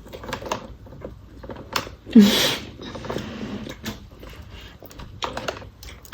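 Scattered light clicks and taps, with one short vocal sound about two seconds in.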